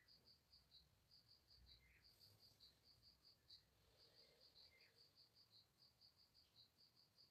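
Near silence, with faint insect chirping: a steady high-pitched pulse repeating about four times a second.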